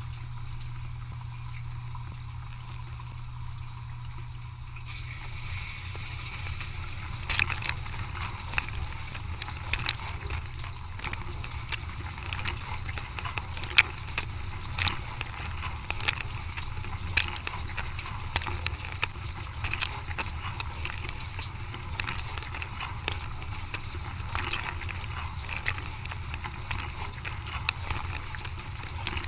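Dishwasher running a wash cycle: a steady low pump hum with water spraying and splashing inside, and from about seven seconds in, irregular sharp taps and clicks of water and items knocking against the dishes.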